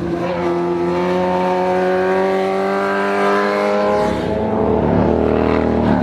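A vehicle engine accelerating, its pitch rising steadily for about four seconds. It then gives way to a lower, rougher engine note.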